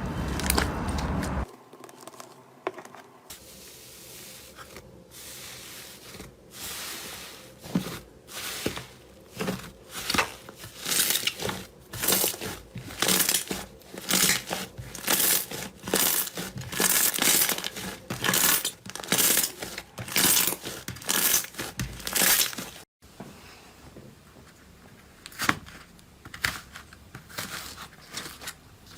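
Slime being squeezed and stretched by hand, giving a run of short crackling, tearing sounds, about one or two a second, fainter near the start and the end.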